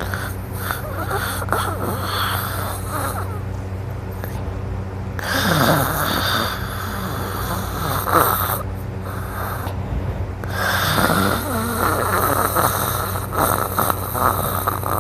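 A sleeping person snoring loudly, one noisy breath after another a few seconds apart, over a steady low hum.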